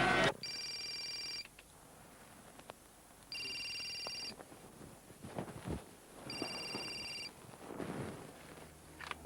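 A telephone ringing with an electronic ring: three rings of about a second each, roughly three seconds apart. Faint knocks and shuffles sound between the rings.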